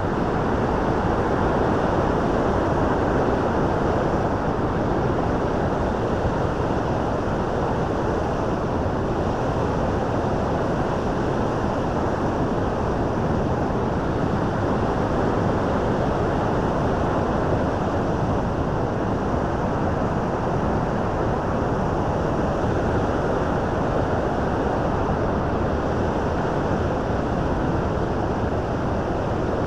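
Bow River's falls and rapids rushing: a loud, steady roar of water, even throughout, with most of its weight in the low and middle range.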